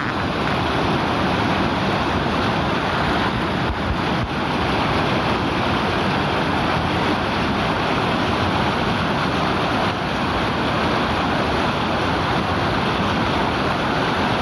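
River water rushing in a loud, even, unbroken flow.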